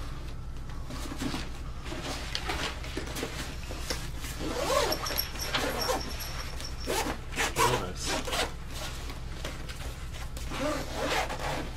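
Zippers on a Powerbag Business Class backpack being pulled along its pockets in several short runs, with the nylon fabric rustling as it is handled.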